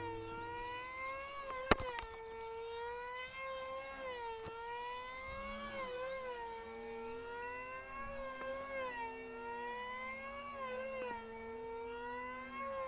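Electric motor and propeller of a small radio-controlled Yak-54 foam model plane whining overhead, the pitch rising and falling again and again as the plane manoeuvres. A single sharp click comes about two seconds in, and a lower steady tone joins from about halfway to near the end.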